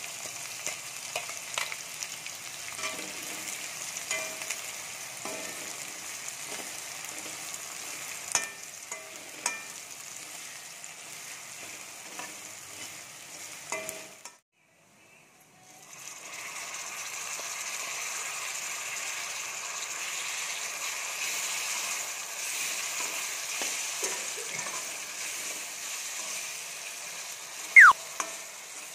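Chopped onions sizzling in hot oil in a kadai, stirred with a metal spatula that clicks and scrapes against the pan. The sizzle cuts out for a moment midway, then comes back steadier. Near the end there is a short, loud falling tone.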